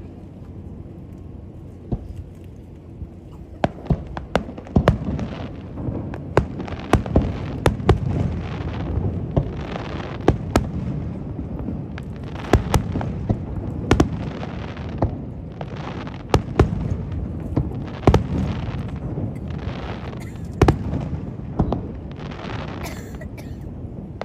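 Fireworks bursting in quick succession: a few sharp bangs about two seconds in, then several a second from about four seconds on, over a low rumble.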